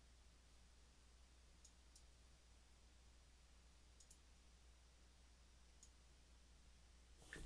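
Near silence with a few faint, sharp clicks of a computer mouse spaced through, and one louder click near the end.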